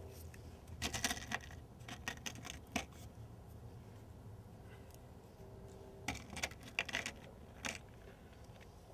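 Small steel needle roller bearings clicking against each other and the steel of a Spicer T-90 transmission cluster gear as they are laid one by one into its bore beside the dowel pin. The light metallic clicks come in two bunches, about a second in and again around six seconds in.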